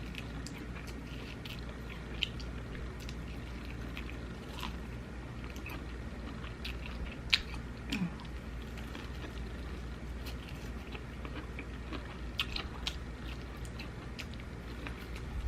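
Close-miked chewing and biting: a person eating fried Cajun corn, with scattered small crunches and wet mouth clicks, one sharper crunch about halfway through, over a steady low hum.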